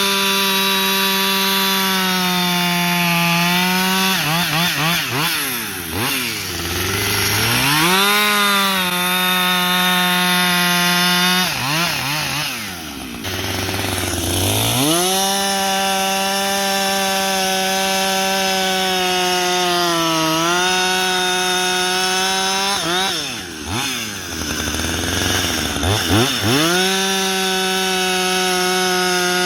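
Husqvarna 562XP two-stroke chainsaw, brand new and on its first tank of fuel, cutting firewood at full throttle. Its pitch sags slightly under load, and three times it drops to idle and revs back up.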